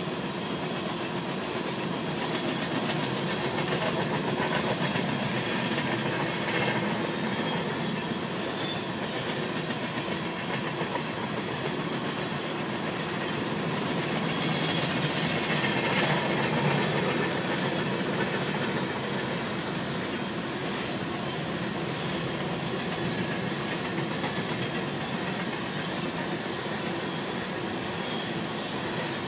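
Union Pacific coal train's loaded coal cars rolling across a steel girder railroad bridge: a continuous steady rumble of wheels on rail, swelling louder about five seconds in and again around the middle.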